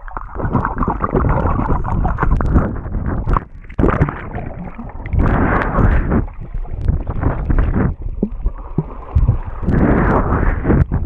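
Water churning and gurgling over a GoPro Session camera held underwater by a swimmer in the sea, muffled, coming in surges of a second or two with short lulls between.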